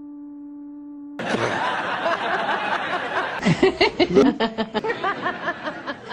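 A woman laughing in a string of short, rapid bursts, which comes after a steady held tone of about a second and a noisy stretch.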